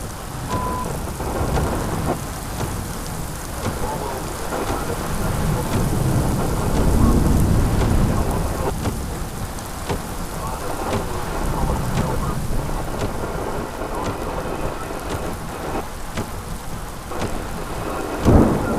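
Heavy rain falling steadily in a thunderstorm, with thunder rumbling and swelling to its loudest about halfway through, and a short louder burst near the end.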